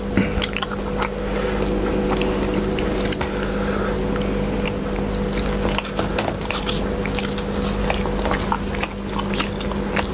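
Two people chewing and eating close to a clip-on microphone, with many short wet mouth clicks and smacks. A steady low hum runs underneath.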